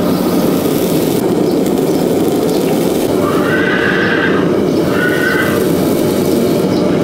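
A horse neighs twice, a longer call about three seconds in and a shorter one about a second later, over a loud, steady low noise.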